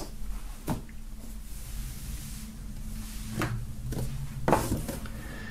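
A few light knocks and some rubbing as items are handled and set down on a wooden tabletop.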